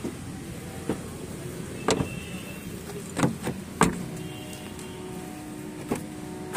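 Clicks and knocks from a car's rear door and interior trim being handled, the loudest a dull thump a little under four seconds in, over a faint steady hum.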